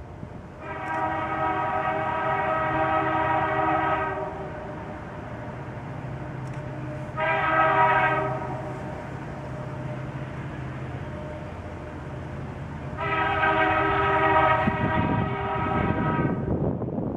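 Diesel freight locomotive air horn sounding from an approaching train: a long blast, a short one a few seconds later, then another long blast, over a steady low engine rumble.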